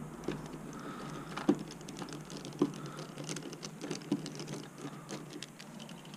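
Light clicks and taps of a hand driver and fingers working plastic and metal parts on an RC truck's rear suspension as it is taken apart, with a few sharper knocks about one and a half, two and a half and four seconds in.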